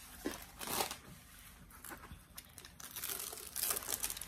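Clear plastic cover film on a diamond painting canvas crinkling and crackling as hands handle and smooth it, in irregular bursts that grow denser and louder near the end.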